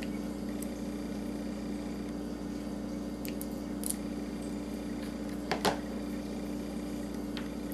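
Wire strippers snipping and pulling insulation off wire: a few scattered sharp clicks and snips, the loudest about five and a half seconds in, over a steady low hum.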